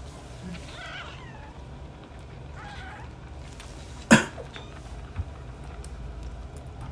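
Newborn kittens mewing: a couple of thin, wavering cries in the first three seconds, then one sharp click about four seconds in, the loudest sound.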